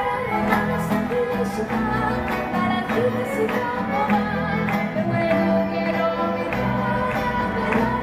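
Live youth orchestra, mainly violins and cellos with some wind instruments, playing a song, with a woman singing the melody into a microphone and regular rhythmic accents.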